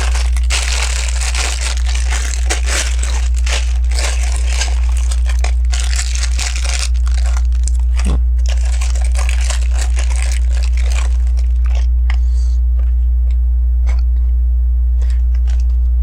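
Loose plastic LEGO pieces being rummaged and handled, a dense crinkly rustling for the first seven seconds or so, then sparser single clicks of bricks. A steady low hum runs underneath.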